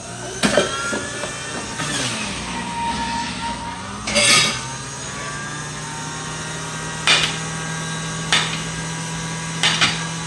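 Electric centrifugal juicer's motor running with a steady hum and whine, with a louder clatter about four seconds in. Several sharp knocks follow, about one every second or so, as a knife cuts through a pineapple onto a plate.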